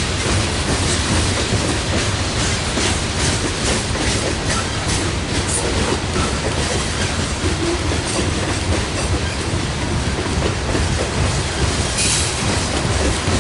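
Loaded coal hopper cars of a long freight train rolling past: a steady rumble of steel wheels with clickety-clack over the rail joints and many small clicks. A brief high-pitched wheel screech comes near the end.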